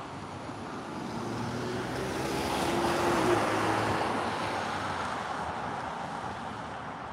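A car driving past: its road and engine noise swells to a peak about three seconds in, then fades away.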